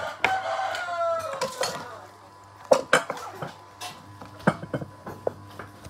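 Spoons and china plates clinking as food is served and dished out, a few sharp separate clinks, the loudest about halfway through.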